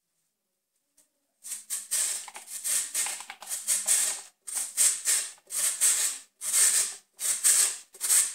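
Peeled raw potato rubbed against the coarse side of a metal box grater. It gives a rhythmic rasping scrape of about two strokes a second, starting about a second and a half in.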